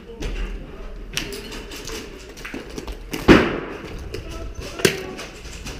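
A few short sharp knocks over a low rumble, the loudest about halfway through and another a second and a half later.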